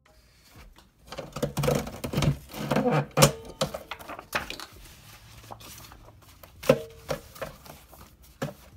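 Irregular clicks, knocks and clatter of paper sheets and craft tools being handled on a desk, densest in the first half.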